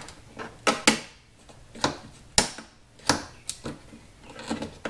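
Plastic clicks as a plastic spatula pries at a BMW M4's chrome fender side grill and works its retaining clips loose: a series of irregular, sharp clicks.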